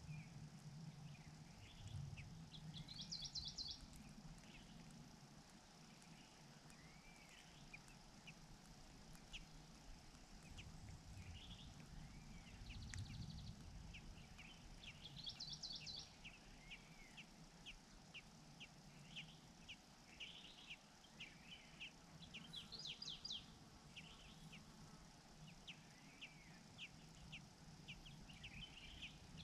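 Birds calling faintly: many short, high chirps and repeated arched call notes, broken every several seconds by a quick run of very high notes, over a low background hum.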